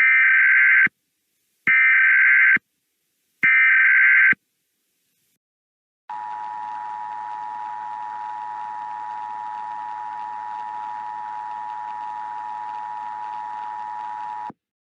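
Emergency Alert System SAME header: three short bursts of warbling data tones, each just under a second, encoding the alert's details. After a short pause comes the EAS two-tone attention signal, a steady dual tone held for about eight seconds over a faint hiss, which announces that an alert message follows. It then cuts off.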